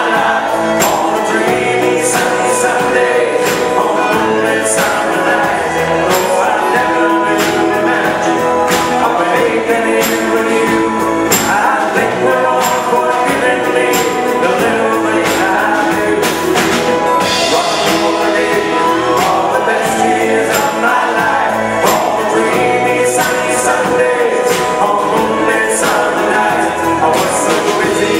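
Live rock band playing a song: electric guitars, bass guitar, keyboards and drums with a steady beat, and a man singing lead vocals.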